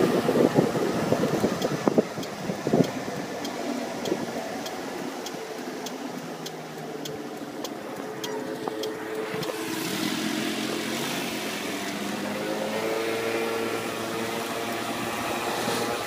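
Moped ride with wind buffeting the microphone, then the moped slows to a stop, its small engine idling with a regular ticking about twice a second. About ten seconds in the engine speeds up again as the moped pulls away.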